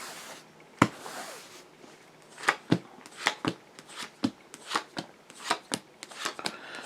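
Tarot cards being shuffled by hand: a soft sliding hiss, then a run of short sharp card snaps and taps about two a second.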